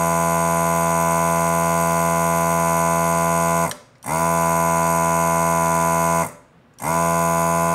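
The built-in vacuum pump of a Hakko FR-301 desoldering gun running steadily as it sucks molten solder from a circuit board's pins. It cuts off twice, about three and a half and six seconds in, and each time spins quickly back up to speed when the trigger is pressed again.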